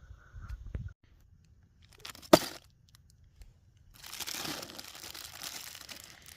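Plastic packaging crinkling and rustling for about two seconds near the end, after a single sharp click a little over two seconds in.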